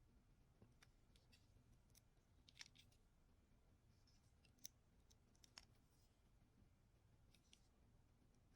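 Near silence broken by a handful of faint, sharp clicks from a small hand tool working on tiny parts of a model locomotive motor. The clearest clicks come about two and a half, four and a half and five and a half seconds in.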